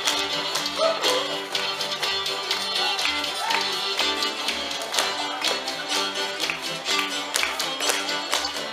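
Live old-time string band with fiddles, upright bass and guitar playing a lively dance tune, with the metal taps of clogging shoes clicking on the dance floor.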